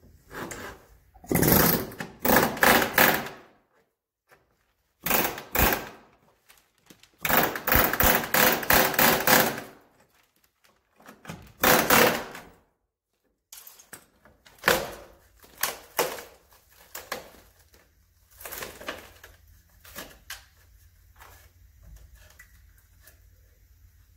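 Pneumatic air hammer chiselling through the spot welds of a rusted rocker panel cover on a Chevy Silverado, to split the old panel off. It goes in several loud bursts of a second or two each, then shorter, quieter ones.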